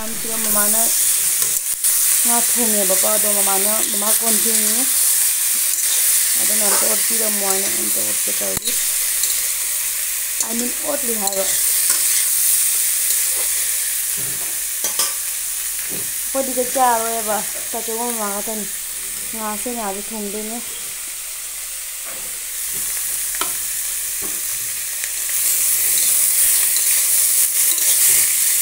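Vegetables sizzling as they stir-fry in oil in a metal wok, with a spatula stirring and scraping them around the pan. A wavering pitched sound comes and goes several times over the sizzle.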